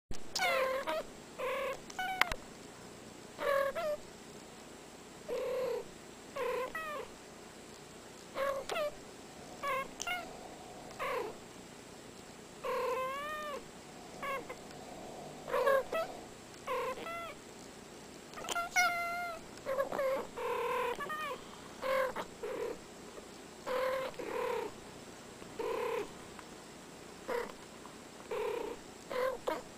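Two cats trading short meows and chirps back and forth, each call bending up and down in pitch, one or two calls a second with short pauses between.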